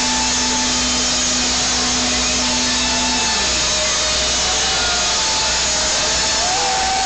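Loud, dense cheering and screaming of a big concert crowd, distorted by a phone's microphone, with a steady low droning note from the stage that stops about three seconds in.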